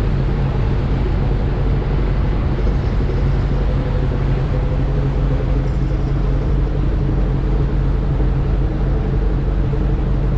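Fishing boat's engine running steadily at trolling speed, a constant low drone with no change in pitch.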